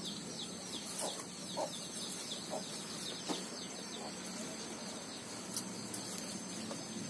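Chickens clucking, with a fast run of short, high, falling peeps, about five a second, in the first two seconds, and a few soft knocks scattered throughout.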